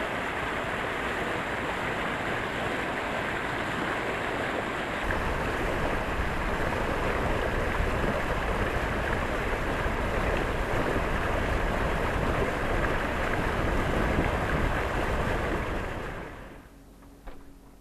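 Water rushing and splashing along the hull of a sailboat under way, with wind buffeting the microphone; the low rumble grows heavier about five seconds in, and the sound fades out near the end.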